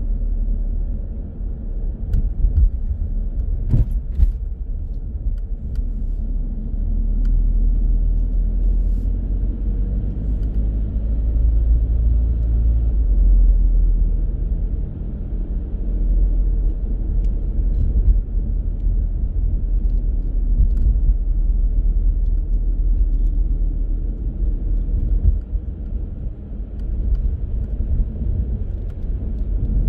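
Car on the move: a steady low rumble of engine and road noise, with a sharp knock about four seconds in.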